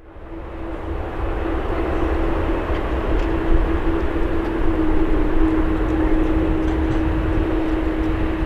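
Jet airliner engines running, a loud, steady rumble with one steady humming tone, fading in over the first second or so.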